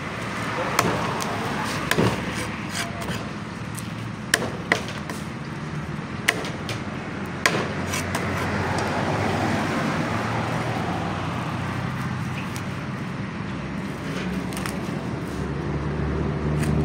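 A large knife scraping along a fish and knocking on a wooden chopping block, with several sharp knocks in the first half.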